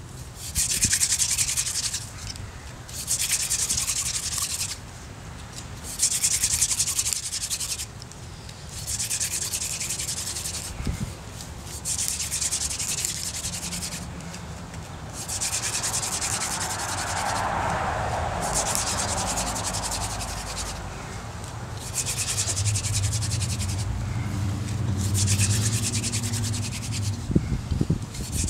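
Hand-drill friction fire: a wooden spindle is spun back and forth between the palms, its tip grinding into a fireboard split from an old 2x4. It makes a dry, hissing scrape in repeated strokes of about two seconds with short breaks between them, and the strokes run longer and steadier in the second half.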